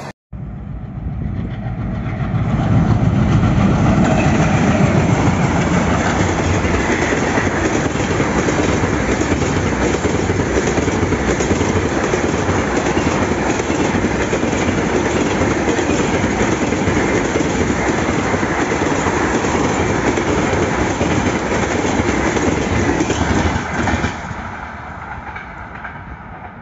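A passenger train's coaches pass close by at speed, their wheels running loudly over the track. The noise drops off sharply about 24 seconds in as the last coach goes by, and then fades into the distance.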